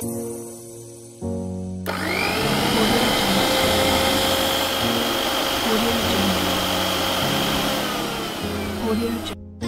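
Miniature electric mixer grinder (mini mixie) motor spinning up with a rising whine about two seconds in and running steadily as it grinds soaked urad dal into a paste. It winds down and stops near the end.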